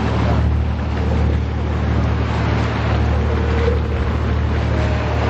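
Steady low drone of a boat's engine heard on board, with an even hiss of wind and water rushing past.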